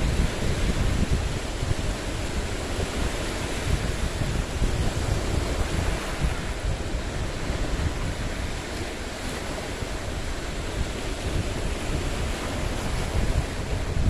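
Lake waves rolling in and washing against a boulder shoreline, with wind buffeting the microphone as a steady low rumble.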